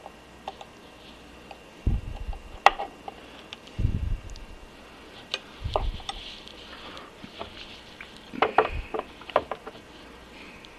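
Light metal clicks and ticks from an Allen key snugging the screws on an Atlas 10F lathe apron. Four dull thumps come as the cast-iron apron is handled and turned over on a wooden board.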